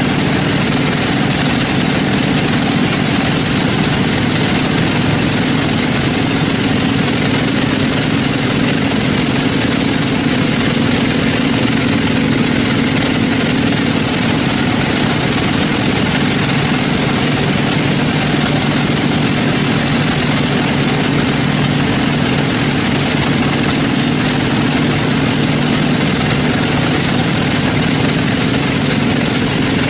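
Sawmill machinery running steadily: a continuous engine-like drone, with a faint high whine that comes in twice.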